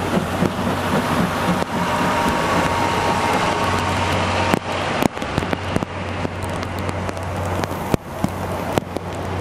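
Passenger coaches of a steam-hauled train rolling past on the rails in heavy rain: a steady rumble with a low hum, broken by a few sharp clicks from the wheels.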